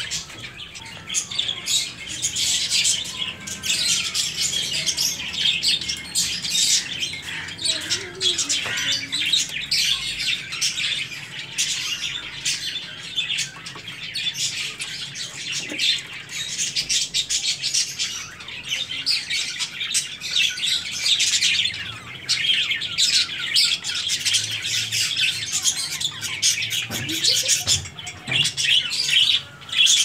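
A flock of caged budgerigars and other small parrots chirping and chattering together, a dense, continuous stream of quick high chirps.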